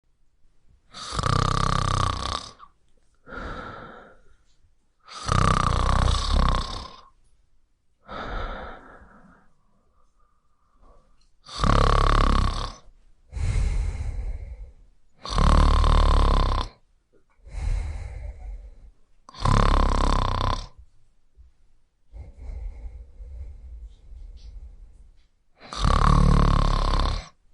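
Sleeping cat snoring: about six loud, buzzy snores roughly every four seconds, each followed by a quieter, shorter one.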